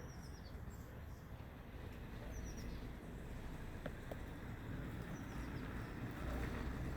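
Short series of high, descending bird chirps, one at the start and another about two and a half seconds in, over a steady low outdoor rumble. Two faint sharp taps come about four seconds in.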